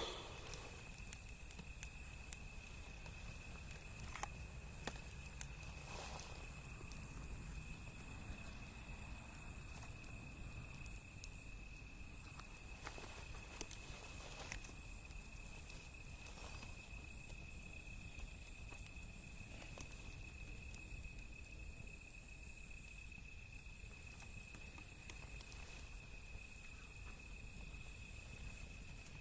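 Wood bonfire crackling quietly, with scattered sharp pops every second or two, over a steady high-pitched whine.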